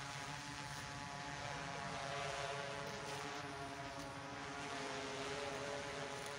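A steady motor drone, a pitched hum whose tone wavers slightly, over background noise.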